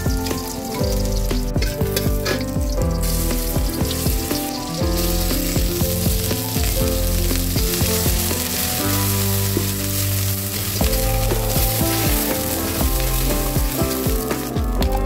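Sliced onions sizzling in hot oil in a steel wok, stirred with a metal spatula; the sizzle grows stronger a few seconds in. Background music plays underneath.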